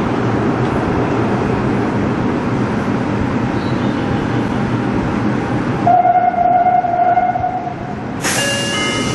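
Subway train standing at an underground platform, with the steady, dense noise of the train's equipment and station. About six seconds in, a steady electronic tone sounds for nearly two seconds, and near the end a brighter hiss starts, carrying several short steady tones.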